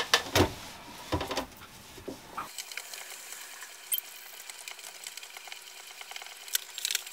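Stationary exercise bike being pedalled: a few soft knocks in the first two seconds, then faint, irregular ticking and clicking from the pedals and mechanism.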